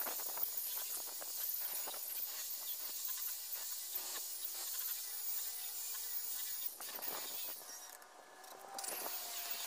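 Rotary polisher with a foam pad running at about 1500 RPM, buffing car paint with a steady whine and hiss during the finishing polish. About eight seconds in it goes quiet briefly, then runs again just before the end.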